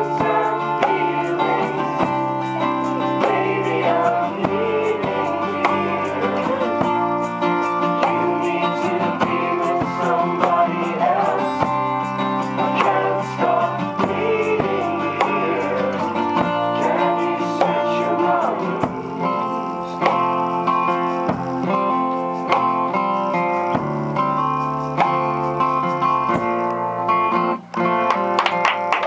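Live acoustic rock performance: a steel-string acoustic guitar strummed with a male voice singing over it and an electric bass playing low notes underneath.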